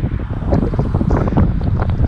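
Wind buffeting the microphone: a loud, gusty low rumble with irregular rustling flutter.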